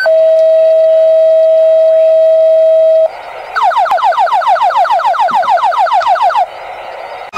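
Fire dispatch alert tones over the radio. A long steady tone of about three seconds, then, after a short pause, a rapid series of falling tone sweeps, about six a second, for about three seconds.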